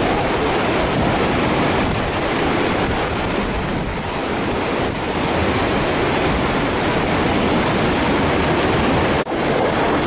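Loud, steady rushing of a fast stream of water pouring across the road at a water crossing, with a brief dropout about nine seconds in.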